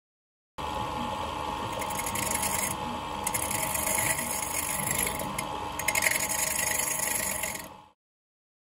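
Wood lathe running while a hand-held metal tool scrapes the spinning dried coconut shell: a steady motor hum under a scraping hiss that swells and eases as the cut goes on. It starts suddenly about half a second in and fades out shortly before the end.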